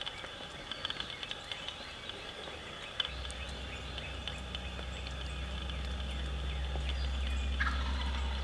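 Outdoor field ambience with small birds chirping and calling. About three seconds in, a low steady rumble sets in and carries on.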